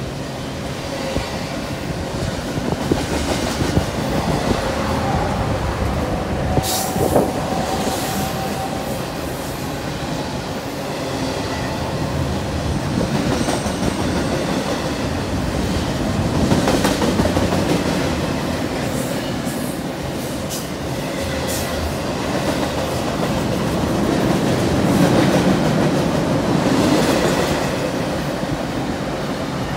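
Double-stack intermodal freight train's well cars passing, steel wheels rolling steadily on the rails, with a brief wheel squeal about seven seconds in.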